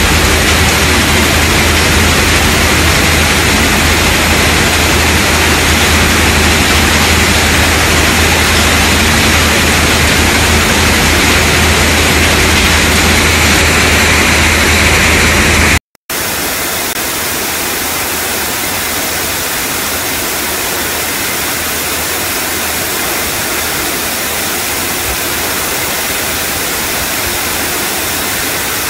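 Steady, loud noise of a sand-sludge filter press and its plant running, with a low hum underneath. It breaks off briefly about halfway through, then carries on a little quieter with less hum.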